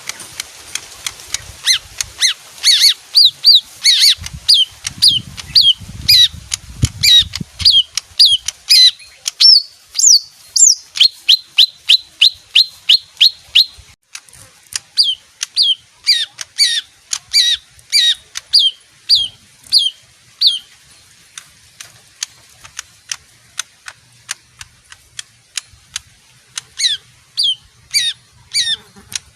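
Leafbird singing: long runs of short, sharp, downward-slurred whistled notes, about two to three a second. There is a brief break about halfway, and near the end the notes come only in a few short bursts.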